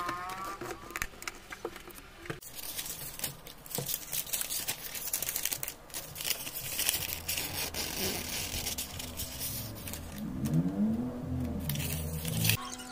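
Long paper receipt being handled and shaken open, crinkling and rustling in quick, uneven bursts.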